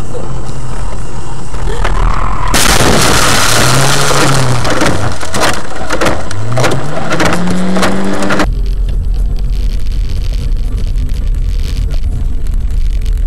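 Car crash heard through a dashcam's microphone. About two and a half seconds in, a sudden loud crash gives way to a rush of noise with many knocks and thuds for about six seconds, and low sounds slide up and down in pitch. It cuts off abruptly, and a steady low rumble of a car driving follows.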